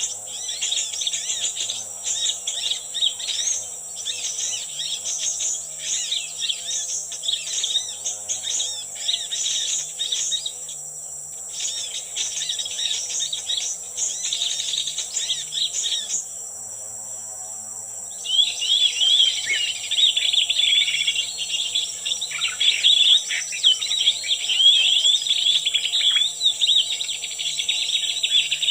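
Small birds chirping and twittering in quick, overlapping calls. The calls drop away briefly about two-thirds of the way through, then come back louder and busier.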